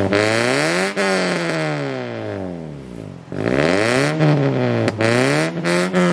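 Toyota Vios four-cylinder engine revved repeatedly while standing, heard at the tailpipe of a newly fitted NDK DK V3 03 aftermarket exhaust with loop resonator. The revs rise to a peak about a second in and fall away slowly, then climb and drop twice more in quicker blips near the end.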